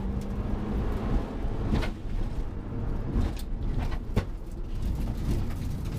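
Mitsubishi Lancer Evo IV rally car, with its turbocharged four-cylinder engine, driving hard on a gravel stage, heard inside the caged cabin. Engine and road noise run steadily, and a few sharp knocks come in the middle seconds.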